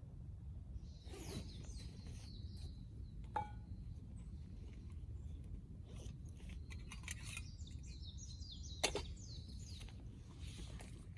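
Outdoor ambience: faint bird chirps over a low steady rumble, with a few sharp clicks, the loudest about nine seconds in.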